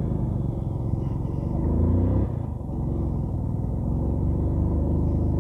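100cc single-cylinder motorcycle engine pulling away with the revs climbing, dropping suddenly about two seconds in as it changes gear, then climbing again.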